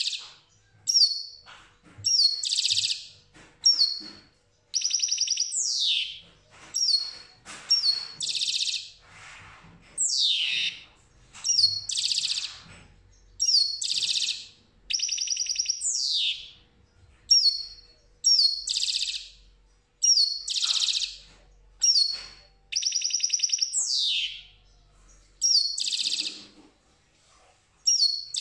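European goldfinch singing: a continuous run of short, high phrases about every one to two seconds, mixing clear notes, buzzy trills and falling slurs.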